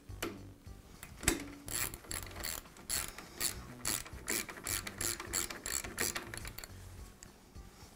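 The coil spring on a Jet drill press, the spring that returns the quill, being wound tighter by hand. It gives a steady run of sharp ratchet-like clicks, about three a second, starting about a second in and thinning out near the end.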